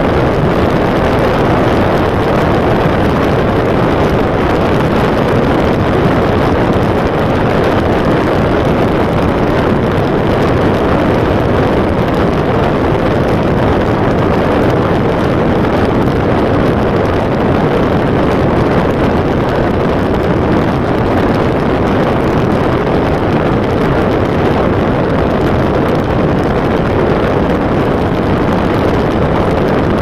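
Steady rushing road and wind noise of a car travelling at highway speed, heard from inside the car, with no change in level throughout.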